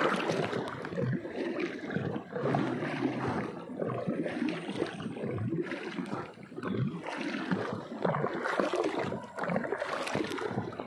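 Water splashing and gurgling around a wooden banca as it is paddled along a river, the wooden paddle blade dipping into the water and dripping.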